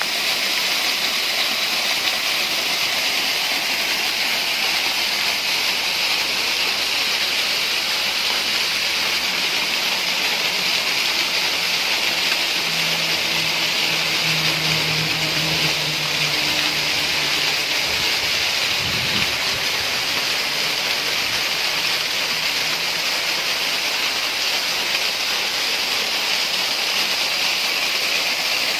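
Floodwater pouring down a rock face in a small waterfall and splashing onto stone below: a steady rushing.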